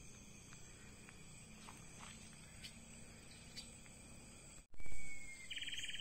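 Steady chorus of forest insects with a few faint clicks. About five seconds in there is a brief low thump, then a bird sings a clear whistled note followed by a rapid pulsing trill.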